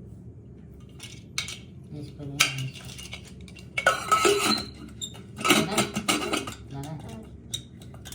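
Metal cookware being handled, pots, lids and pans clinking and knocking together in several short bursts.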